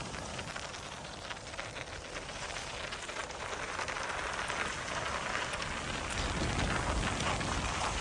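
Bicycle tyres rolling over a gritted, packed-snow path: a steady crackling crunch. Wind rumbles on the microphone, growing stronger in the last couple of seconds.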